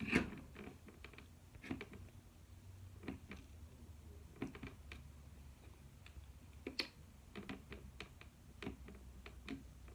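Irregular plastic clicks and taps from the buttons of a talking alarm clock being pressed and handled, with a louder click at the start and quicker clicks in the second half.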